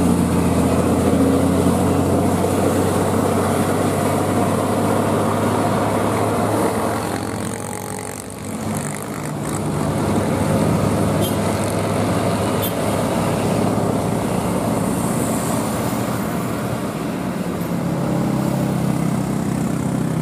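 Diesel engine of a heavy truck loaded with an excavator, running steadily under load as it climbs a steep hill. The sound dips briefly about eight seconds in, then carries on.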